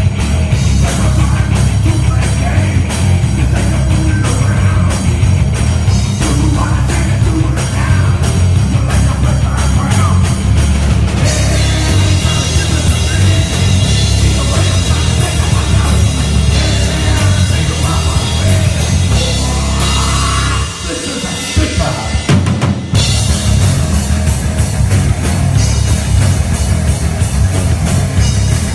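A rock band playing live: drum kit and amplified guitars at full volume. About three-quarters of the way through, the low end drops out for a couple of seconds in a break before the whole band crashes back in.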